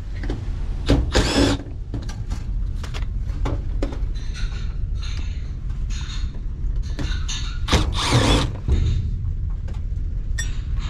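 Cordless drill-driver backing out the two screws that hold an HVAC freezestat controller, in two short runs about a second in and about eight seconds in. Small clicks and rattles fall between the runs, over a steady low hum.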